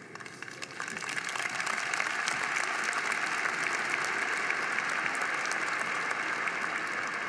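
Large audience applauding, swelling over the first second or so and then holding steady.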